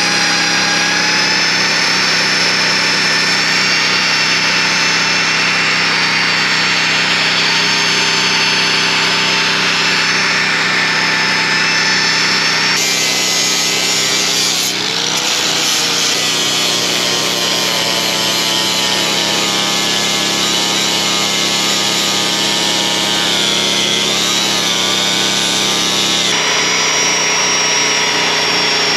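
Electric grinder grinding steel on a bulldozer part, a steady high whine over harsh grinding noise. About halfway through the sound turns rougher and wavers in pitch for some thirteen seconds as the wheel bites harder, then settles back to the steady whine.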